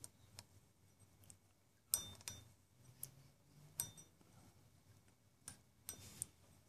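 Faint, irregular metal clicks and taps as centrifugal clutch shoes are worked by hand on the crankshaft extension sleeve of an 80cc two-stroke bicycle engine, about eight light clicks spread over several seconds.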